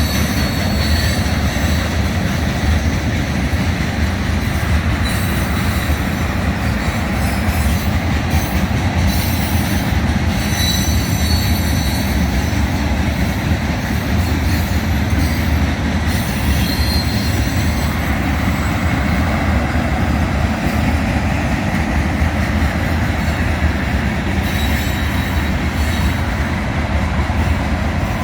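Freight train of tank cars rolling past at about 29 mph: a steady rumble and clatter of steel wheels on the rails, with high wheel squeal coming and going several times.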